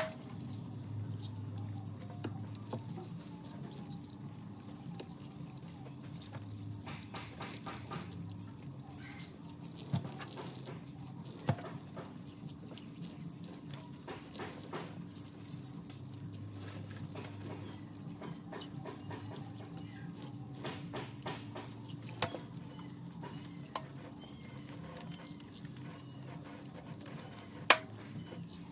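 A thin stream of tap water runs and splashes into a stainless steel sink as raw chicken pieces are rinsed and handled under it. A few sharp knocks stand out, the loudest at the very start and near the end.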